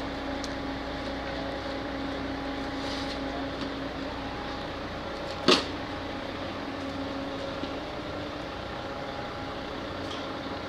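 Steady hum of a running machine with a constant low tone, and one sharp knock about five and a half seconds in.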